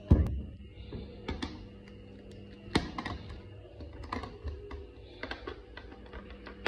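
Hard plastic clicks and knocks as floating lint-catcher filters, mesh bags on plastic float balls, are picked up and handled in a top-load washing machine drum. There is a heavy thump right at the start and a sharp knock about 3 seconds in.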